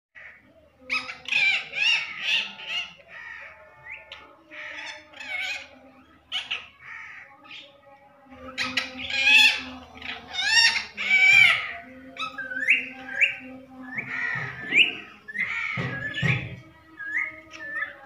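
Rose-ringed parakeet (Indian ringneck) giving a long run of short, shrill calls and chatter, some with quick upward-hooking notes.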